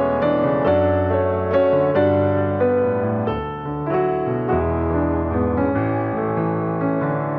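Background piano music, slow and gentle, with sustained notes over a steady bass line.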